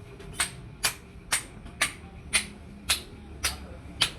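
Hammer blows on metal during leaf-spring repair work: eight sharp strikes about two a second, each with a brief ring.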